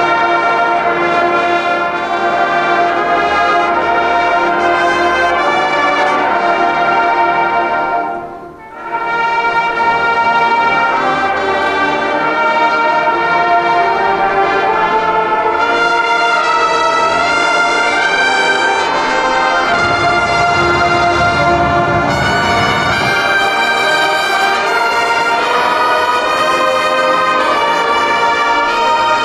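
A massed marching band of about 700 players playing loud, brass-led sustained chords with trumpets and trombones to the fore. The sound cuts off briefly about eight seconds in and comes back. A low rumble joins for a few seconds past the middle.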